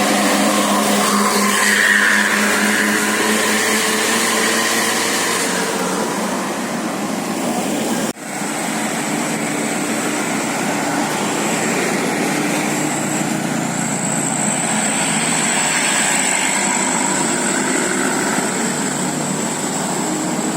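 Road traffic with vehicle engines running steadily and a thin high whine through the second half. The sound breaks off abruptly about eight seconds in and picks up again at once.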